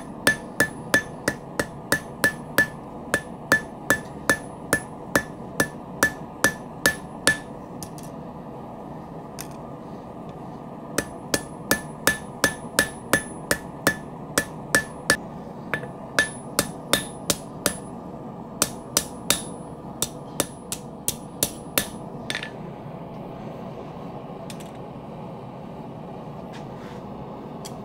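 Blacksmith's hand hammer striking hot steel on an anvil, about three blows a second, each with a short ring, while rounding the back section of a forged tong handle. The hammering pauses for a few seconds, starts again, and stops a few seconds before the end, leaving a steady background hum.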